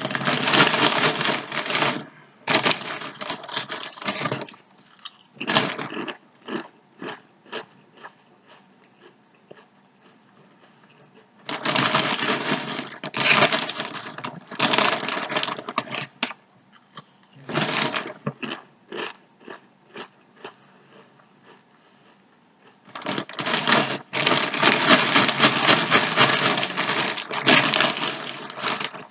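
Sun Chips being bitten and chewed close up, a crisp crackling crunch. It comes in dense spells of a few seconds with scattered single crunches between.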